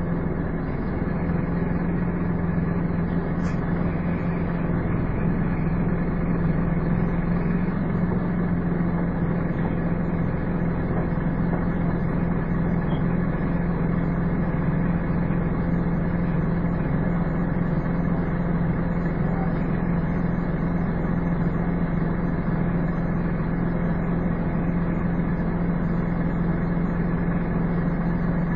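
Scania N230UD double-decker bus's diesel engine settling from a falling pitch into a steady idle, a constant low drone with no change in speed.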